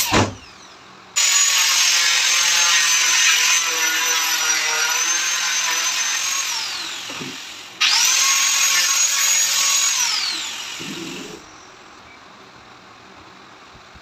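A couple of sharp knocks, then an electric power tool cutting a WPC fluted panel in two runs, each a high whine that winds down with falling pitch. The second run starts with the motor spinning up.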